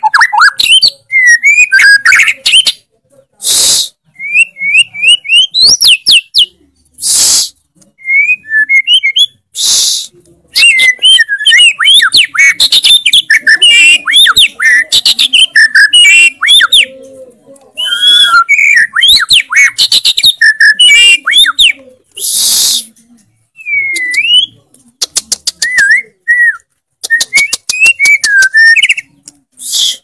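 White-rumped shama singing a long, varied song of fast whistled notes and rapid trills. Several short harsh bursts break up the song.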